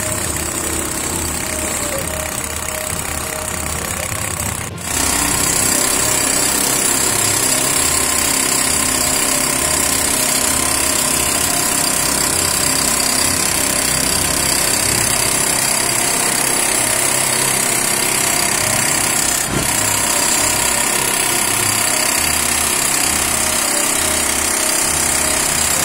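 Electric demolition hammer chiselling into reinforced concrete, a loud steady rapid hammering. It starts abruptly about five seconds in, after a few seconds of quieter mixed worksite noise.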